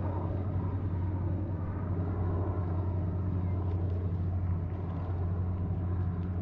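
A steady low engine drone that holds an even pitch, with a few faint clicks over it.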